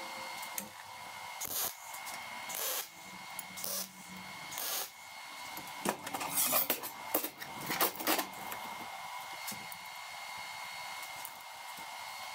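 Mild-steel plate and square-tube parts clanking and scraping on a steel welding table as they are shifted and set in place, in a string of irregular knocks that is busiest and loudest about six to eight seconds in. A steady high hum runs underneath.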